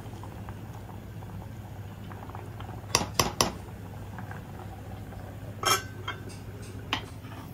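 Metal ladle clinking three times in quick succession against a steel saucepan, then a stainless steel lid clattering onto the pot, followed a second later by a single click. Underneath is the faint steady sound of the rice and vegetables boiling on the gas burner.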